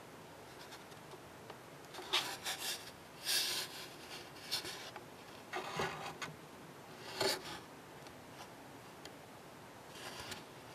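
A few short, irregular rubbing strokes against the plastic hull of a model ship during weathering, about six in all, over a quiet room.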